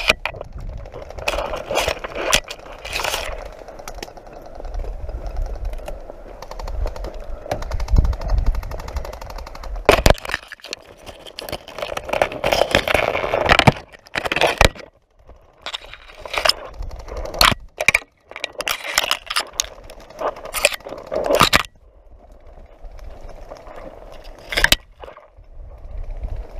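Pushing through dense brush close to the microphone: branches and twigs scraping, rustling and snapping, giving irregular runs of sharp cracks and clicks with a couple of brief pauses.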